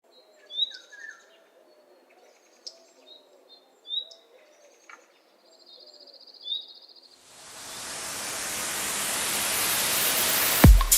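Birds chirping and trilling, with sparse short calls. About seven seconds in, a rush of noise swells steadily louder, and just before the end a bass-heavy music beat kicks in.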